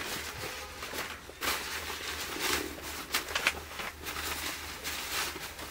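Nylon carry bag rustling and scraping as it is pulled over a folded camping cot's frame, with scattered light knocks and clicks of the frame's poles. A steady low hum runs underneath.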